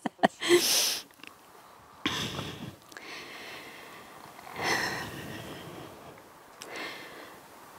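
A woman's soft laugh and breathing close to a handheld microphone, heard as four short breathy puffs spread over a few seconds.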